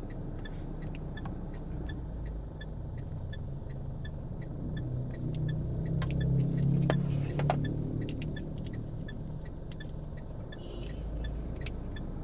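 Low, steady rumble of a vehicle running, with faint regular ticking and a few sharp clicks about six to seven and a half seconds in.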